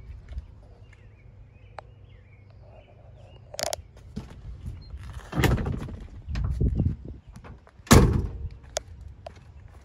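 A car door on a 1973 Ford Mustang Mach 1 shuts with a single heavy thunk about eight seconds in. Before it come a sharp click and a few seconds of rustling and shuffling.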